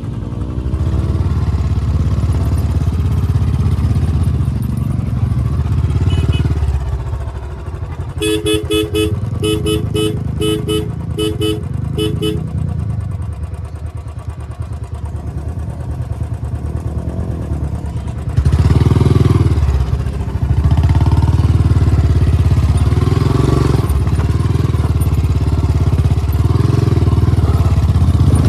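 Motorcycle engine running and revving on an off-road climb, with a string of short, evenly spaced horn beeps for about four seconds near the middle. The engine gets markedly louder, revving hard, for the last ten seconds.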